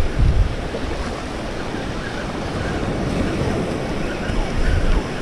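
Surf washing onto the beach, with wind buffeting the microphone in a low rumble.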